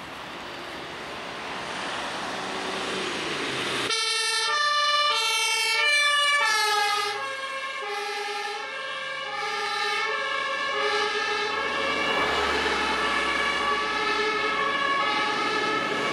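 Rising road noise of an approaching vehicle. About four seconds in, a German fire-brigade ambulance's two-tone siren (Martinshorn) starts, alternating between a high and a low tone roughly every half second, while the ambulance drives past on an emergency run.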